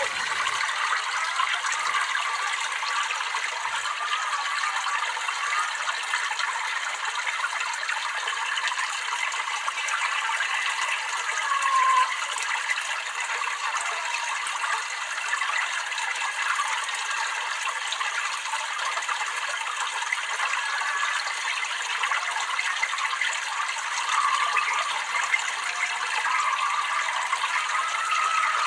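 Water babbling and trickling steadily.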